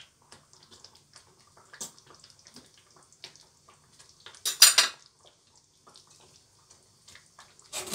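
Light clinking and scraping of a metal utensil in a stainless-steel pot of cooking spaghetti as strands are lifted out to check whether the pasta is done, with one louder, longer noisy burst about halfway through.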